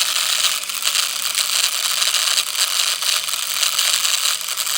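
Small electric toy motor and plastic gears of a remote-control Mater tow truck running, a loud, steady, dense rattling grind.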